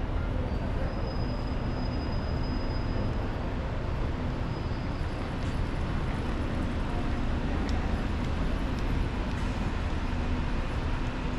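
Steady city background noise dominated by a low rumble of vehicles, with no distinct single event.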